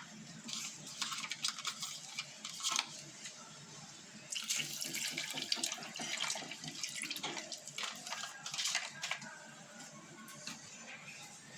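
Liquid being poured into a blender jug over ice, splashing, with clinks of ice and glass. The pouring is loudest from about four seconds in until shortly before the end.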